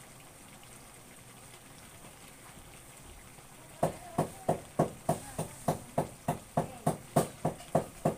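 Faint steady hiss of a simmering pot, then, about four seconds in, a run of sharp, loud knocks at about three a second.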